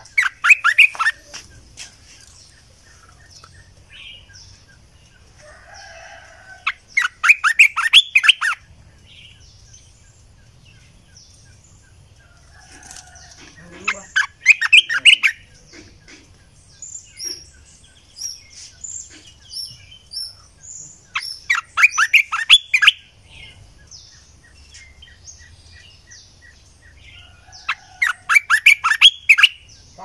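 Olive-winged bulbul singing: a short, loud burst of song about every seven seconds, five times, with faint chirps of other birds in the gaps.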